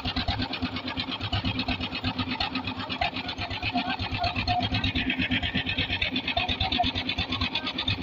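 Concrete mixer engine running steadily, with a fast, even mechanical chugging.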